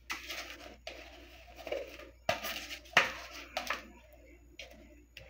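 Silicone spatula scraping custard batter out of a plastic mixing bowl into a glass baking dish: a run of short, irregular scrapes with a couple of sharper taps in the middle.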